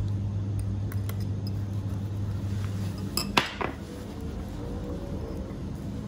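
Wire whisk clinking and scraping against a glass mixing bowl while flour and egg white are stirred, with one sharper glass clink about halfway through. A steady low hum runs under the first half and stops.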